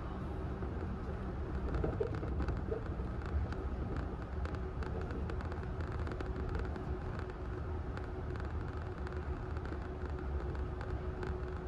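Yurikamome rubber-tyred automated guideway train running along its elevated track, heard from inside the car: a steady low rumble with a constant hum and faint scattered ticks.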